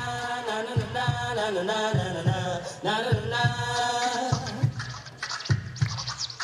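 A music track with a steady beat, pitched vocal-like samples and record scratching.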